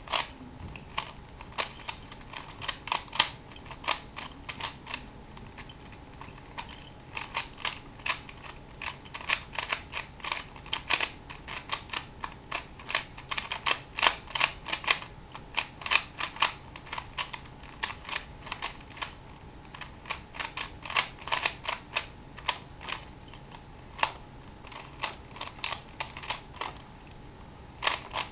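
Plastic clicking and clacking of a 3x4x5 cuboid twisty puzzle as its layers are turned fast by hand, in quick flurries of turns with a short lull about six seconds in.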